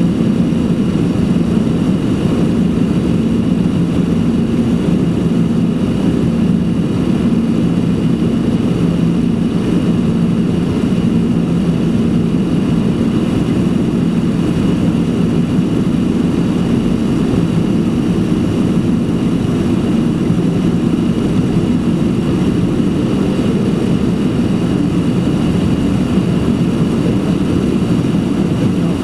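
Jet engines of a Boeing 767-300 running steadily, heard inside the cabin over the wing as a dense, unchanging rumble with a faint steady high whine.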